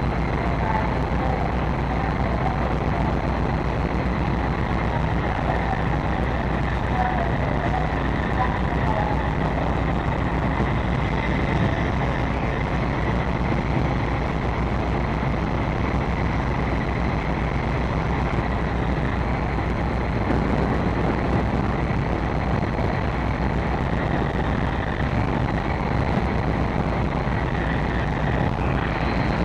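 A large car ferry's machinery running steadily: a constant low drone with a faint high whine over it.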